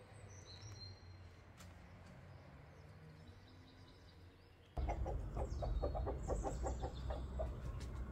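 A few faint small-bird chirps, then about five seconds in, louder chickens clucking in quick short notes over a steady low background noise.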